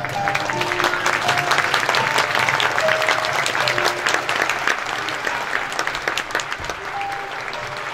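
Crowd applauding, with a light instrumental tune playing underneath; the clapping thins out after about five seconds.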